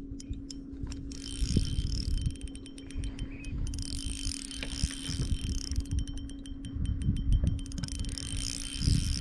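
Fishing reel clicking and ratcheting as a hooked bass is fought and reeled in, over a steady low hum and an irregular low rumble.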